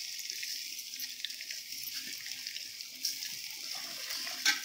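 Hot oil in a pot sizzling steadily as washed, drained rice is tipped in from a perforated steel colander, with small ticks of grains landing. A brief louder noise near the end.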